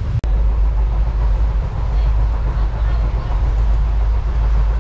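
Indian passenger train running, heard from inside the carriage: a steady, loud low rumble with rattling noise.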